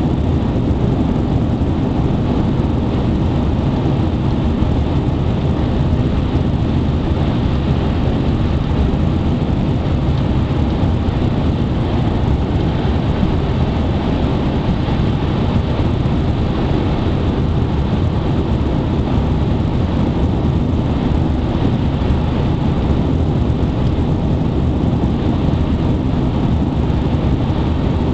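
Steady road and wind noise inside a moving car, a continuous low rumble.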